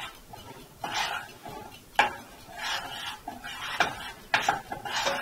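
A utensil stirring melting chocolate in a small metal saucepan on a stovetop burner: scraping strokes around the pan, with sharp clinks against the metal every second or so.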